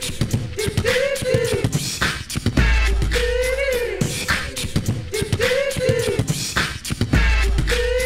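Music soundtrack: a looping beat of sharp drum hits under a wavering sung or vocal-style line, with a deep bass note returning about every four and a half seconds.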